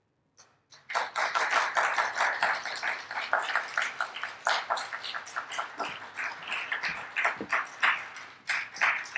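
Applause from a small audience: a couple of first claps, then steady clapping from about a second in, with the individual claps distinct.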